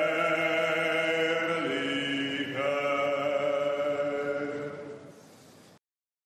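Sustained choir-like chords, held steady and moving to new notes twice, then fading near the end and cutting off abruptly.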